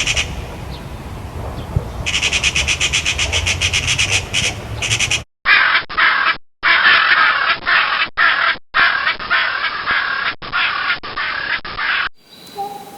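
A run of different bird-call recordings joined by hard cuts. First come fast, evenly repeated high chattering calls in two runs. From about five seconds in there are harsh, raspy crow-like calls, broken by several abrupt gaps. Thin whistled song over a quiet background comes in near the end.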